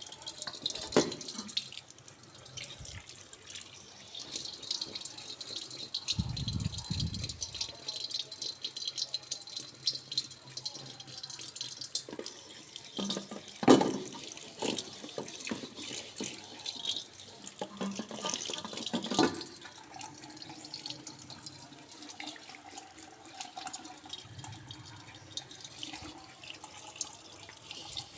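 Tap water running into a sink as a wok is rinsed, with a few sharp knocks as the pan is handled. The loudest knocks come about halfway through and again about two-thirds through.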